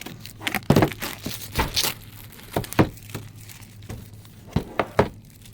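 Plastic shrink-wrap crinkling and the cardboard camera box being handled, in an irregular run of crackles and taps.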